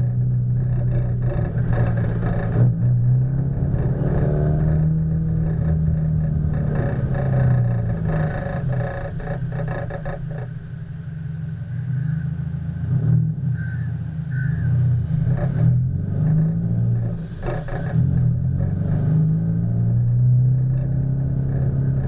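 Subaru Impreza WRX STI's turbocharged flat-four engine running through an A.R.T. titanium exhaust while driving, its note rising and falling in pitch as the car accelerates and eases off, dipping briefly about halfway through. The sound is slightly muffled by the camera's waterproof housing.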